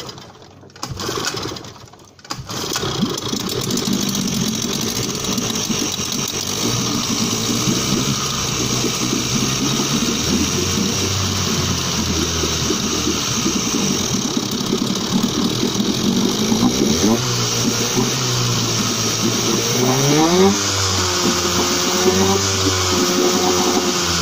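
1977 Suzuki DT9.9 two-stroke outboard pull-started with its cylinder full of carb cleaner. It fires in short bursts, catches about two seconds in and runs steadily. Near the end the throttle is opened and eased off a few times, so the revs rise and fall.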